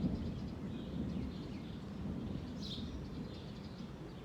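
Low, distant rumble of thunder, with a few short bird chirps over it.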